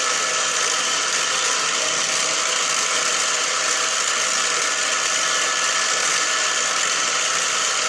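Steady whir of a machine motor running, with a few constant tones over an even hiss and no change in level.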